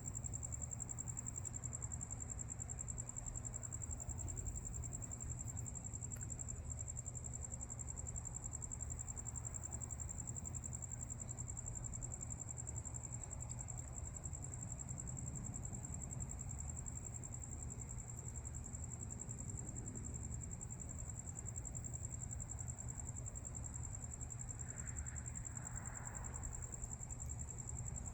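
Night insects, most likely crickets, trilling as one steady, continuous high-pitched note over a low, steady background rumble.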